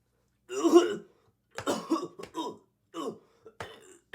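A man choking on food, with throat-clearing coughs and gagging grunts: one loud strained cough about half a second in, then a run of short choking coughs and gasps.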